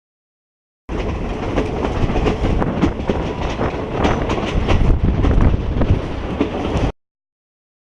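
Train running on the rails, wheels clattering and rattling with many quick clicks over the track. The sound cuts in abruptly about a second in and cuts off abruptly about a second before the end, with dead silence either side.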